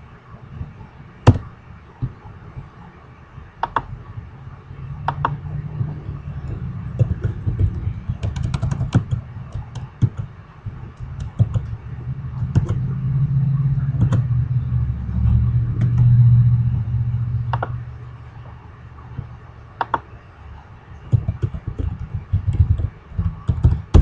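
Computer keyboard keys and clicks, tapped singly and irregularly, with a quick run of keystrokes near the end. A low rumble swells up through the middle and fades out.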